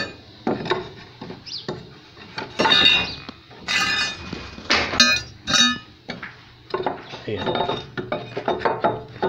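Hammer striking small nails into a wooden brace board, sharp metallic clinks with a short ring at irregular intervals.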